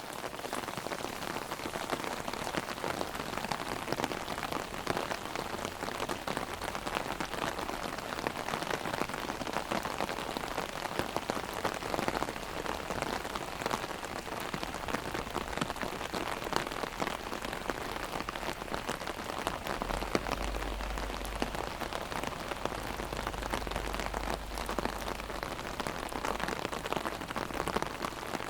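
Heavy rain drumming on an umbrella held overhead, a dense, steady patter of drops. A low rumble comes in about two-thirds of the way through.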